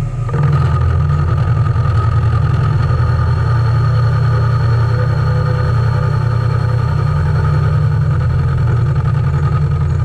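Vertical milling machine running with a spiral end mill rough-cutting cast aluminium: a steady low hum with constant whining tones above it.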